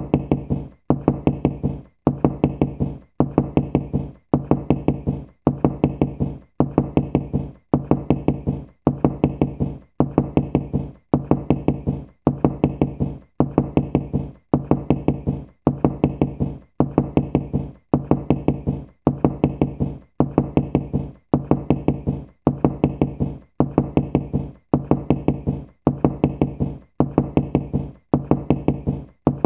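Knocking: a quick cluster of several knocks, repeated evenly about once a second in a steady loop.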